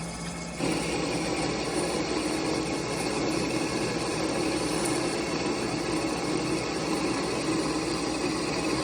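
Lathe cutting tool with a worn insert biting into the turning workpiece about half a second in, over the lathe's steady motor hum: a continuous cutting noise with a steady droning tone through it, stopping near the end.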